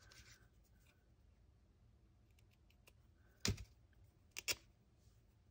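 Quiet room tone broken by light clicks from hands handling a small fabric scrap over a paper journal: one sharp click about three and a half seconds in, then a quick pair a second later.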